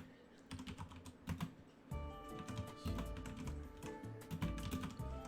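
Computer keyboard typing: quick, irregular keystroke clicks, with background music and a steady bass pattern underneath.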